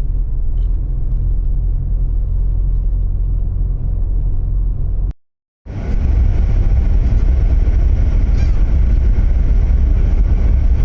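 Steady low rumble of a car being driven, engine and road noise. It breaks off for half a second about five seconds in, then comes back a little louder.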